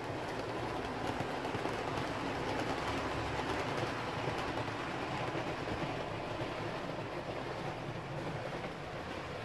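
Model railway trains running on the layout's track: a steady noise of wheels and motors with faint rapid clicking, easing slightly near the end.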